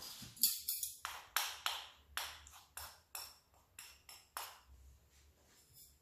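A wooden spatula stirring a moist vegetable stuffing in a glass mixing bowl, knocking and scraping against the glass about three times a second, each stroke ringing briefly. The strokes stop about four and a half seconds in.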